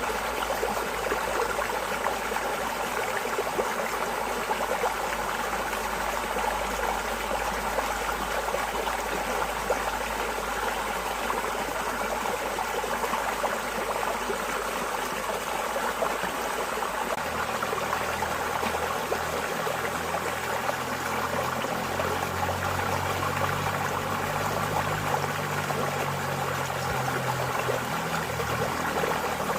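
Water flowing steadily in a stream, an even, unbroken rush. A low rumble joins in about halfway through.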